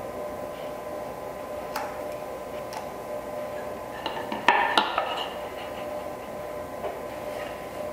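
Hand tools being handled on a workbench while marking out: a few light clicks, then a cluster of metallic clinks and knocks about four to five seconds in, over a steady faint hum.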